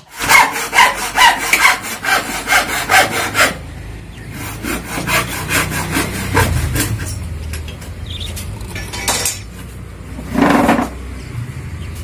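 Hand saw cutting a wooden board in quick back-and-forth strokes, about two to three a second, loudest for the first few seconds and then softer. A short, louder noise comes about ten seconds in.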